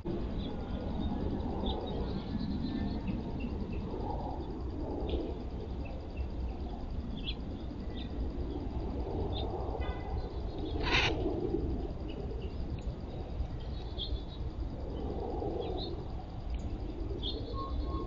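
Wild birds calling: scattered short, high chirps and repeated lower, harsher calls over a steady low rumble. A single sharp click about eleven seconds in is the loudest sound.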